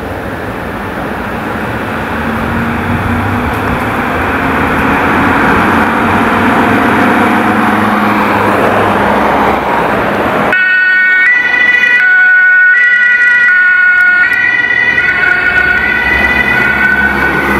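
Road traffic noise swells for about ten seconds. Then the German two-tone emergency siren of a Mercedes Sprinter ambulance sounds loud and steady, alternating between a high and a low tone, each held for under a second.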